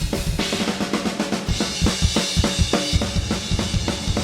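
Metal drum kit playing back: fast, rapid-fire bass drum hits under snare strokes, the snare run through a Soundtoys Little Plate plate reverb in its steel plate mode, which gives it a longer decay. Cymbals come in about a second and a half in.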